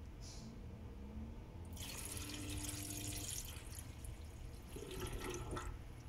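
Water rushing and gurgling through under-sink drain plumbing in two bursts, the first about two seconds in and the second near the end.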